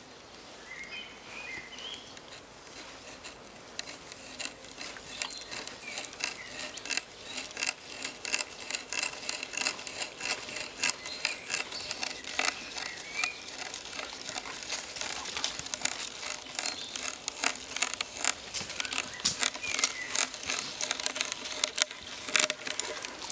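Auger bit turned in a hand brace, boring into a log: dense crackling and snapping of wood fibres being cut as the shavings curl out, growing busier and louder a few seconds in.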